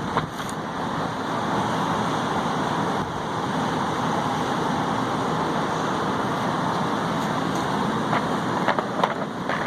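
Steady rushing noise, like a shop fan or running machine, with a few sharp clinks of metal tools near the end.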